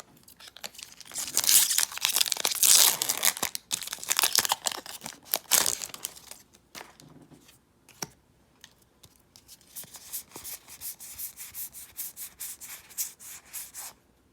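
Foil wrapper of a Magic: The Gathering booster pack being torn open and crinkled for several seconds, followed by a run of quick soft clicks as the cards are slid and flicked through.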